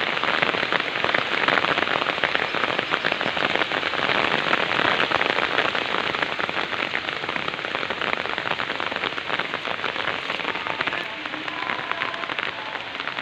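Heavy rain pouring down: a dense, steady patter of countless drops, easing a little near the end.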